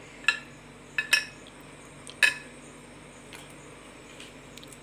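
Hard, set pieces of peanut chikki clinking as they are lifted off the slab and set down on a glass plate: a few sharp clicks, two close together about a second in and one more a second later.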